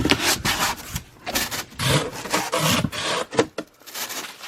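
Box packaging being handled and pulled open by hand: irregular bursts of rustling and scraping.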